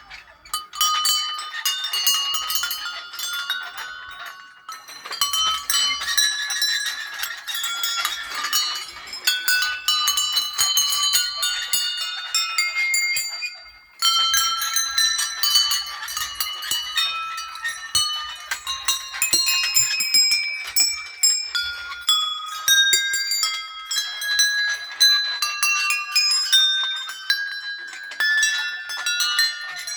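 Many small temple bells ringing, struck over and over so their high, clear tones overlap in an irregular jangle. The ringing briefly thins out about halfway through, then resumes all at once.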